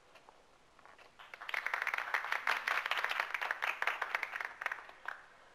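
A group of people applauding: dense clapping that swells up about a second in, holds for roughly three seconds, and dies away near the end with a last stray clap.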